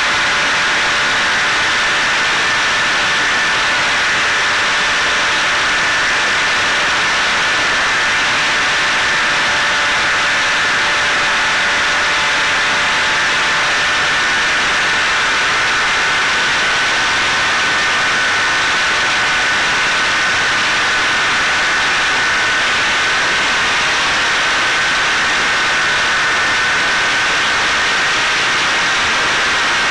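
Onboard audio of a Caipirinha 2 flying-wing FPV drone in cruise: the steady whine of its electric motor and propeller over rushing wind noise, the whine's pitch drifting slightly.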